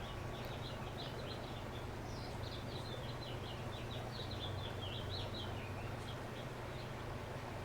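Small songbirds chirping in quick, high notes, busiest in the middle with a rapid falling trill about five seconds in, over a steady low rumble.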